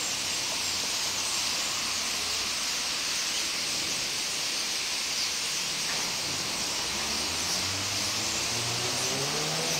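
A steady high hiss, with a motor vehicle's engine coming in about seven seconds in and rising in pitch.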